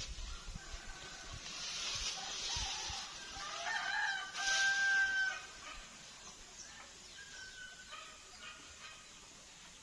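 A rooster crowing, one long call about four seconds in that rises and then holds, with a fainter crow near the end. Tall grass rustles and swishes as it is pulled and walked through.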